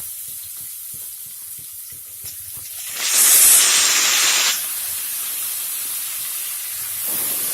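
Potatoes sizzling in hot mustard oil in a kadhai. About three seconds in, a loud burst of sizzling lasts about a second and a half as wet spinach hits the hot oil, then settles back to a steady sizzle.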